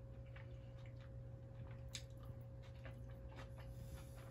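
Quiet eating: a few faint clicks of a fork against a plate, over a steady low hum.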